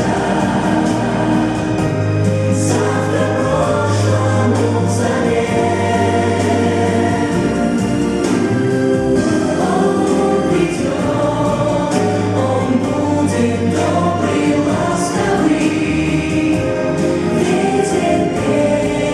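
Recorded song with a choir singing sustained lines over an instrumental accompaniment with a steady bass.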